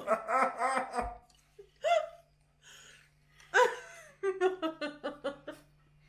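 People laughing in bouts: a run of quick laughs at the start, and a longer run in the second half.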